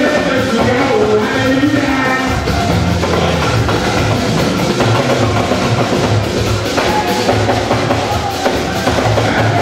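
Church band music with a steady drum beat, singing near the start and again near the end.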